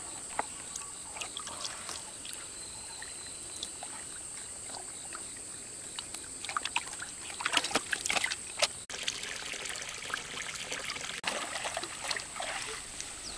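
Water dripping and splashing as a fishing net is worked in a lake, with bursts of splashes about halfway through and again near the end. A steady high-pitched whine runs underneath.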